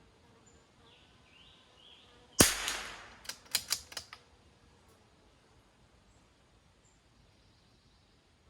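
A single rifle shot about two and a half seconds in, with a tail that fades over about half a second, followed by four sharp clicks over the next second and a half.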